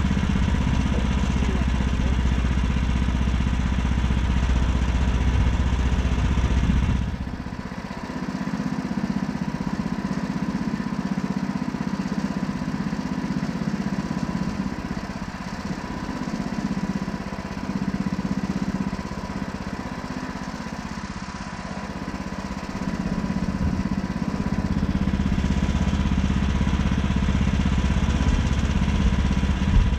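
Portable band sawmill's gasoline engine running steadily, with a thin steady whine over it. From about seven seconds in, the deep rumble falls away and the sound is quieter for roughly seventeen seconds, then it comes back as loud as before.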